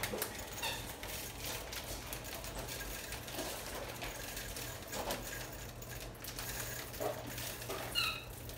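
Dry sunflower seeds pouring from a plastic bag into a blender jar, a steady stream of small irregular clicks and patters as they land.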